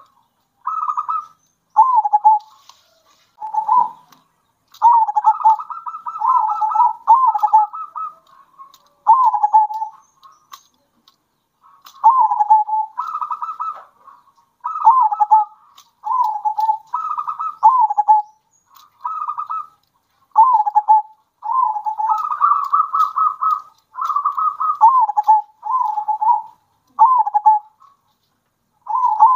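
Zebra doves (perkutut) singing their short cooing phrases over and over, several birds taking turns. Each phrase ends in a falling note, with a short pause about a third of the way through.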